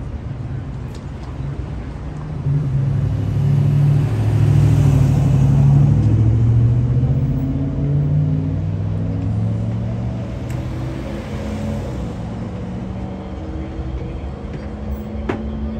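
A motor vehicle's engine passing close by on the road, swelling about two seconds in and fading away over the next several seconds, over a steady hum of street traffic.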